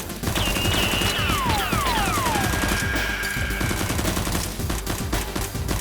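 Rapid, sustained gunfire sound effects, shots coming in quick bursts, over background music. Several falling whistling tones sound in the first half.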